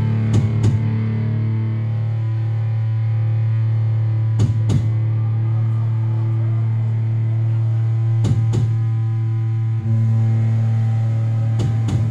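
Distorted electric guitar holding a low, droning chord through an effects pedal, with pairs of drum hits about every four seconds: a slow, sludgy passage of live powerviolence. The chord is cut and struck again briefly near the end.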